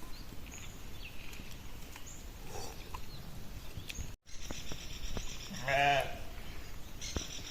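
A sheep bleats once, a single wavering call about six seconds in, over steady outdoor background noise.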